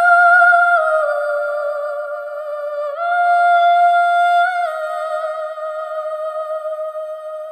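Background music: a slow, single-line melody with vibrato, each note held for a second or two before stepping to the next.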